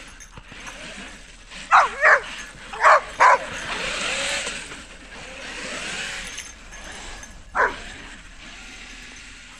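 Dog barking five times: two quick pairs about two and three seconds in, then a single bark near the end. In between comes the steady noise of a Traxxas X-Maxx electric RC monster truck running and spinning its tyres through snow.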